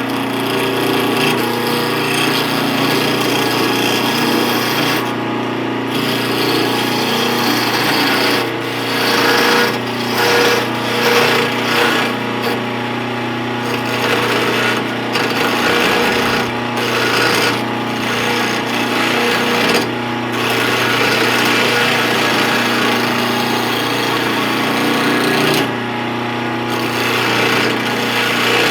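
Wood lathe running steadily while a turning tool cuts into a spinning wooden chisel handle, a rough scraping noise over the motor's hum. The cutting noise lets up briefly a few times, around 5, 13, 20 and 26 seconds in, as the tool comes off the wood.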